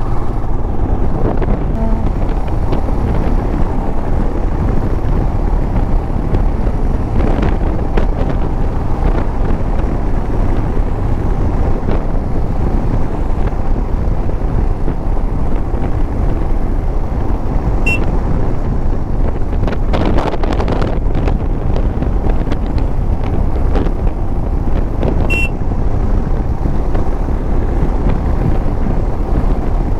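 Steady wind buffeting on the microphone over a motorcycle's engine and tyres, riding along at road speed.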